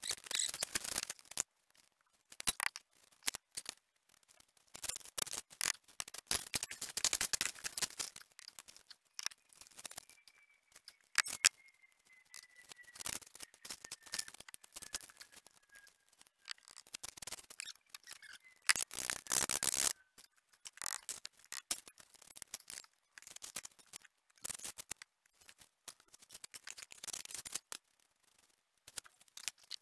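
Bricklaying by hand: a trowel scraping wet mortar and tapping bricks down into the bed, in irregular scrapes and knocks with short pauses. The longest, loudest scraping comes about two-thirds of the way through.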